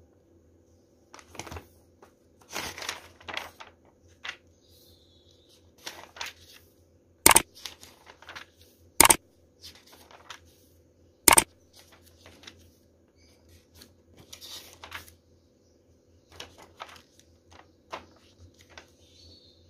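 Pages of a paperback book being opened and leafed through by hand, the paper rustling and flapping in soft bursts. Three sharp mouse-click sound effects from a like/subscribe/bell button animation stand out near the middle, the loudest sounds here, over a faint steady hum.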